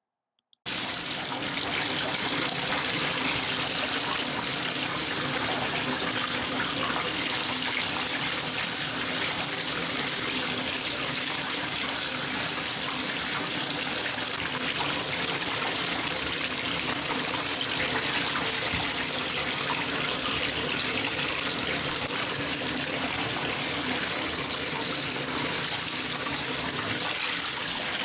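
Bathtub faucet running steadily into the tub as wet skate pads are rinsed under the stream. It starts abruptly about half a second in.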